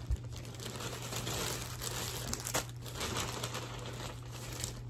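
Thin plastic packaging crinkling and rustling as a small item is unwrapped by hand, with a few sharper crackles.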